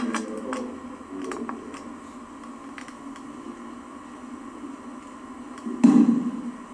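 A single heavy thud on the tatami mat about six seconds in as the aikido partner is taken down in an ikkyo, with a few light taps and scuffs in the first second or so, over a steady hiss.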